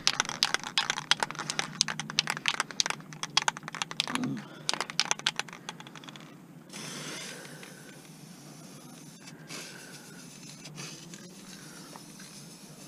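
Aerosol spray-paint can being shaken, its mixing ball rattling in a rapid run of clicks for about six seconds. Then the clicking stops and a steady hiss of paint spraying from the can begins.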